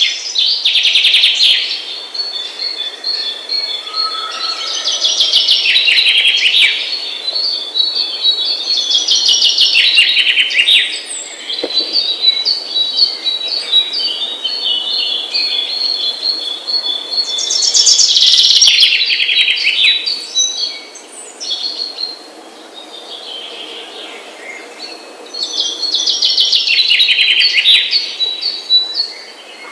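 Small birds singing and chirping: loud bursts of high, falling song recur every several seconds, with a steady string of high chirps between them.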